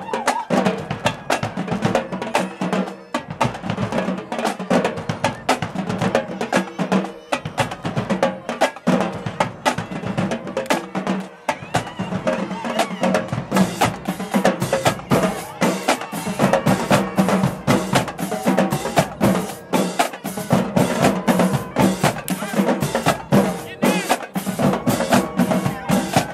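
Marching band drumline playing a fast, steady cadence on snare and bass drums, with a dense run of drum strokes several to the second.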